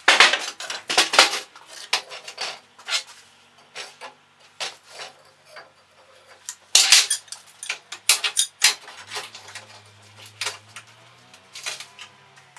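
Metal tools and firebricks being handled on a steel workbench: a run of sharp clinks, clatters and knocks, loudest at the start and again about seven and eight and a half seconds in.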